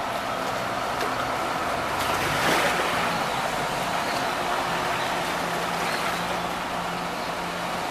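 Buses driving through deep floodwater: a diesel engine hums steadily under the continuous swish and wash of water pushed aside by the wheels, swelling briefly about two and a half seconds in.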